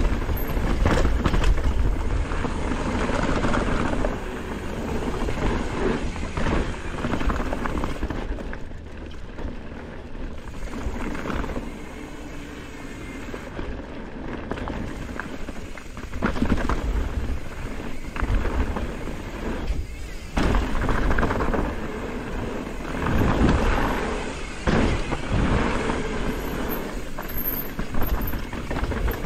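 Wind buffeting the microphone, with the tyre roar and rattle of a downhill mountain bike riding fast down a dirt trail, swelling and easing as the speed changes.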